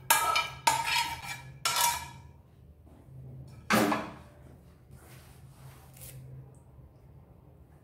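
Metal spoon scraping and knocking against a frying pan as curry is emptied into a glass bowl: four sharp clanks in the first four seconds, each with a short metallic ring. Only faint clatter follows.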